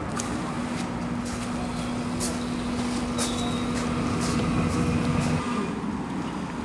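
BFT automatic rising bollard's drive motor humming steadily at one pitch as the bollard rises out of the ground, cutting off about five and a half seconds in when the bollard is fully raised.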